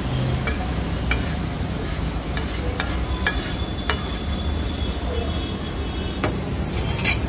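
Flat metal spatula scraping and clicking against a large iron griddle as egg gravy is scooped off onto a plate: a handful of sharp clicks over a steady low rumble.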